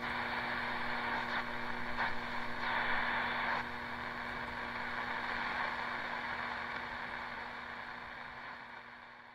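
A steady rushing noise with a low hum running under it, like a motor or vehicle running, that fades out near the end.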